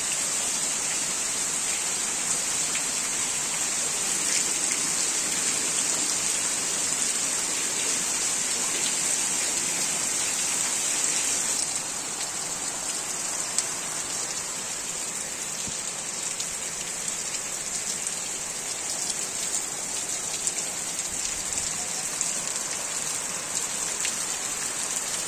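Torrential rain pouring steadily onto open ground and puddles: a dense hiss with scattered ticks of individual drops, easing slightly in loudness about halfway through.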